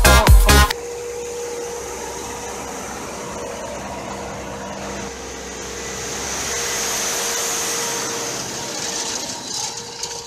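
Electronic dance music that cuts off in the first second, then an Ursus 8014H tractor running steadily as it pulls a cultivator through stubble, with a held engine tone. The sound swells as the tractor passes close, about six to eight seconds in.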